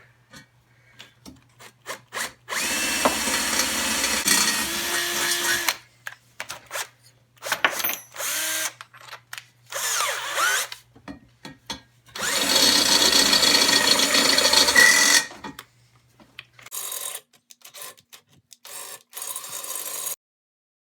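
Electric drill boring a hole into a steel turbo exhaust log manifold, then opening it up with a step bit. It runs in stop-start bursts: two long runs of about three seconds and several short ones.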